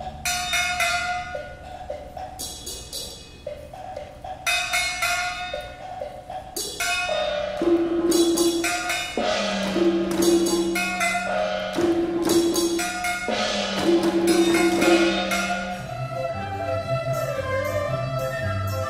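Chinese traditional orchestra playing, with repeated percussion strikes over held notes. The music is softer at first and grows louder about a third of the way in.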